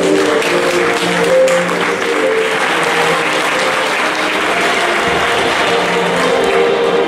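Audience applauding over music; the clapping swells about half a second in and thins out near the end, while the melody carries on underneath.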